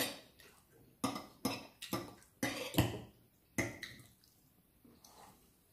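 Dishes and cutlery clinking and knocking during a meal, with about seven separate sharp clinks over the first four seconds, each ringing briefly.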